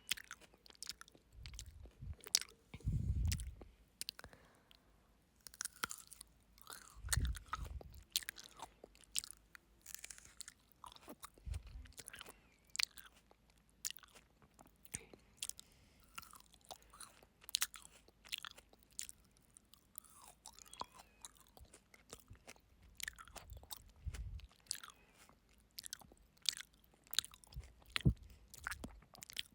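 Close-miked chewing and crunching of frozen grapes, with many sharp, irregular crunches and clicks and a few low thumps in between.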